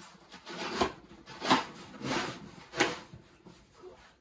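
A snow shovel scraping and scooping through snow: four rough scraping strokes, each a little under a second apart, with lighter scuffing between them.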